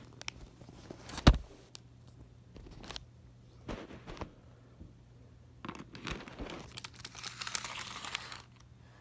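Handling noise while unpacking a model locomotive: a sharp knock about a second in, a few softer taps, then plastic packaging crinkling for a couple of seconds near the end.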